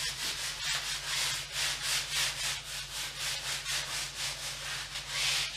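Folded kitchen paper wiped back and forth over a stretched canvas, a rhythmic swishing of about four strokes a second. The paper is spreading painting medium to wet the canvas for wet-on-wet oil painting.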